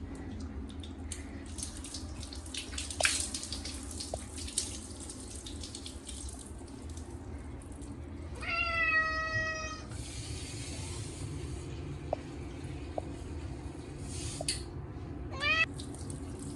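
Short-legged Munchkin cat meowing in protest while being bathed: one long drawn-out meow about halfway through and a short rising one near the end, over steady running water.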